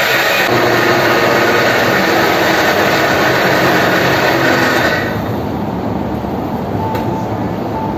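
Electric blender with a stainless steel jar running at speed, grinding soaked soybeans and water into soy milk; the sound drops and turns quieter about five seconds in.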